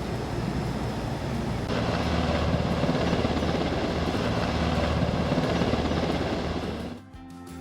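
Helicopter flying past, a steady rotor chop with a low drone underneath. It cuts off abruptly near the end.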